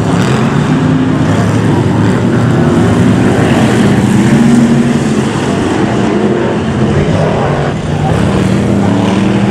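Several BriSCA F1 stock cars' V8 engines running together, their notes rising and falling as they rev on and off the throttle round the oval. The sound is loudest about halfway through and dips briefly near the end.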